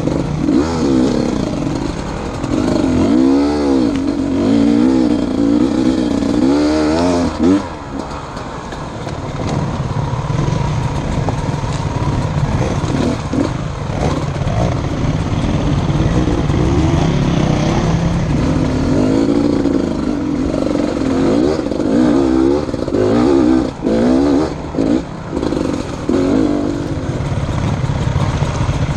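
Enduro motorcycle engine under way, revving up and down again and again as the throttle is worked. There are a few short drops in loudness where the throttle is shut, about a third of the way in and again near the end.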